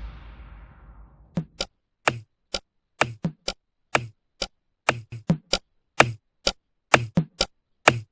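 A fading wash of sound dies away in the first second, then a run of sharp, dry knocks follows at an uneven pace, about two a second, each with a short low thud.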